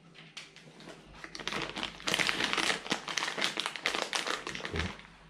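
Plastic dog-treat packet crinkling as it is handled and rummaged by hand: a dense run of crackles that builds up, is loudest in the middle and dies away near the end.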